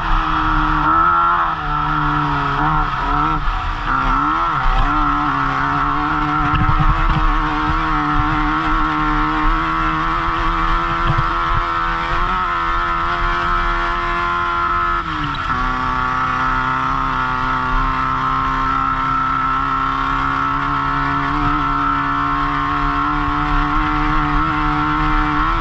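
Off-road race car's engine running hard under load, heard from the driver's helmet camera inside the car. The engine pitch wavers up and down in the first few seconds, drops suddenly about fifteen seconds in, then holds steady.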